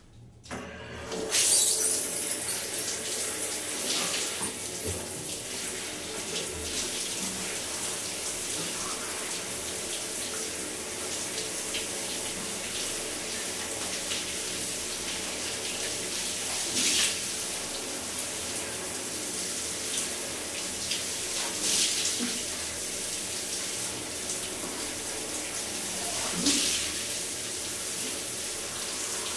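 Water running steadily through a plastic drain pipe from the floor above, setting in abruptly about a second in, with a few brief louder surges.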